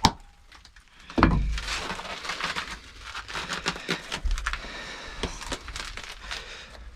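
Close handling noises: a loud thump about a second in, then scattered clicks, crackles and rustling, with a low rumble in the background from the middle on.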